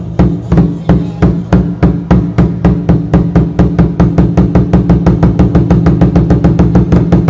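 A large festival drum beaten in a steadily quickening roll, speeding up from about three strikes a second to about six, with the drum's low ringing carrying between strokes.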